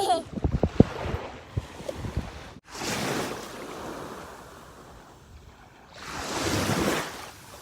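Sea waves washing up on a sandy beach, swelling twice about three seconds apart, the second louder. A few soft knocks come in the first two seconds.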